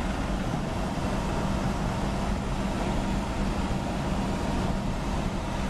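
Dodge D250 pickup running on wood gas, cruising at highway speed, heard from inside the cab: a steady engine drone under even road and wind noise.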